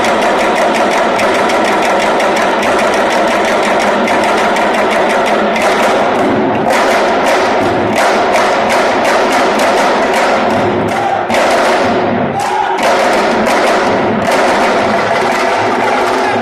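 Ensemble of Senegalese sabar drums beaten with sticks and hands, playing a loud, fast, dense rhythm together. The texture thins briefly about eleven seconds in, then the full drumming resumes.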